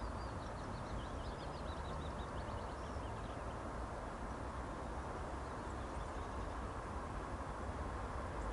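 Steady distant rumble of a 2TE10U diesel locomotive's two-stroke diesel engines as it approaches hauling a freight train. A songbird sings a fast high trill over it in the first few seconds, with a few fainter chirps later.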